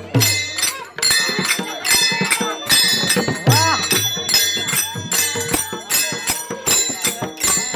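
Small metal hand cymbals struck in a fast, steady rhythm, ringing brightly, over a double-headed barrel drum whose deep bass strokes twice drop in pitch: traditional procession music played live.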